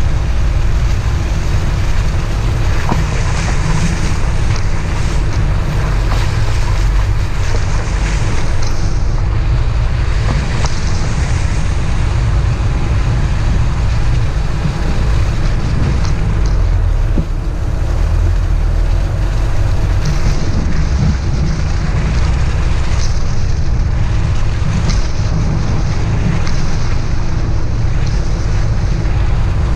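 A vehicle engine running steadily while driving, nearly buried under heavy wind rumble on the microphone, with scattered small knocks and clicks.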